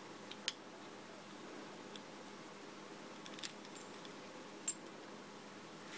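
Faint, scattered metallic clicks and clinks of a metal construction toy's perforated steel strips, nuts and bolts being handled and fitted together by hand, with a sharper click near the end.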